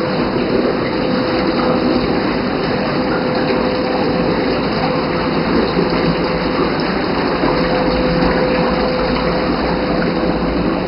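Whirlpool bathtub running its hydromassage jets: a steady rush of pumped water and air over a constant motor hum.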